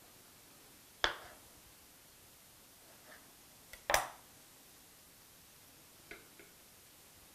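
Knife tapping against a cutting board while slicing black olives: two sharp knocks about three seconds apart, the second louder, with a few faint taps around them.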